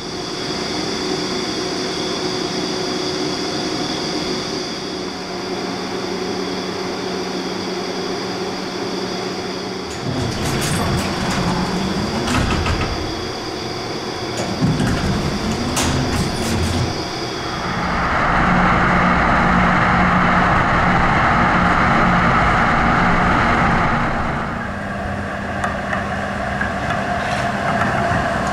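Duewag GT8 articulated tram: a steady electrical hum inside the car, then knocks and clatter partway through, a louder rushing stretch, and near the end a GT8 running by on street track.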